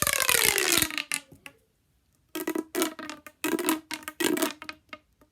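A handheld fidget toy being worked: a loud sound at the start whose pitch slides down over about a second, then four or five short pitched buzzes repeating on one steady note.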